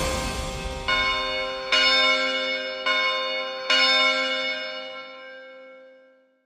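Bell chimes struck four times, each strike ringing on over the last, the ringing fading away slowly.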